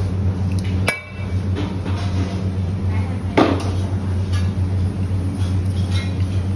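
A steady low machine hum, with a sharp knock about a second in and a louder knock past the middle.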